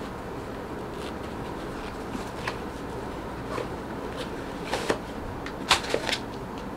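Scattered rustles and light knocks of items being handled in an open cardboard box, the sharpest a little before the end, over a steady background hiss.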